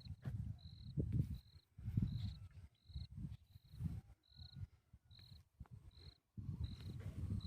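Faint short high chirp repeating evenly, about three every two seconds, over low irregular rumbling.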